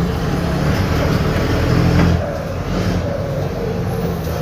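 Mercedes-Benz OF-1721 bus diesel engine running with a holed exhaust (leaking exhaust). The engine note eases off slightly a little past halfway.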